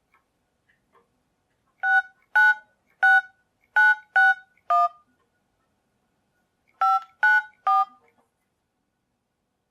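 Cellphone keypad touch-tone (DTMF) beeps as a number is dialed: six short two-tone beeps in quick succession, a pause of about two seconds, then three more. Faint clicks sit between the beeps.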